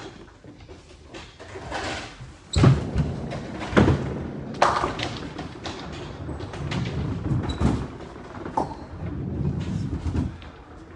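Nine-pin bowling balls thudding onto the lanes and rolling with a low rumble, with the clatter of pins being knocked over. The heaviest thud comes about two and a half seconds in, with further sharp knocks soon after.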